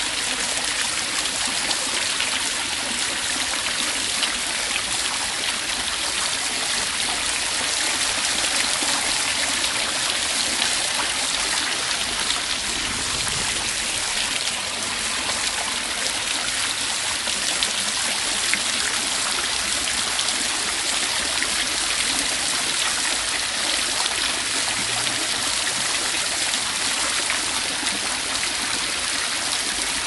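Running water flowing and splashing steadily, an even, unbroken sound with no pauses or changes.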